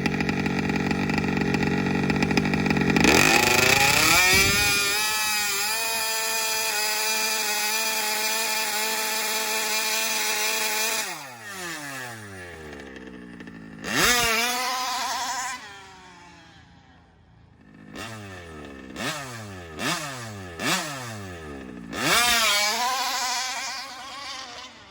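Small two-stroke gas engine of a large-scale RC dragster running at a steady speed, then revved hard about three seconds in and held high for several seconds. It drops back, then gets a sharp rev and a string of short throttle blips, each falling back in pitch.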